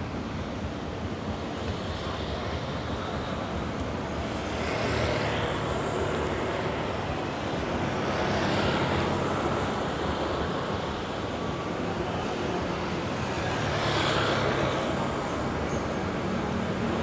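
Road traffic: cars and motor scooters driving by over a steady traffic hum, with three vehicles swelling and fading as they pass, about five, nine and fourteen seconds in.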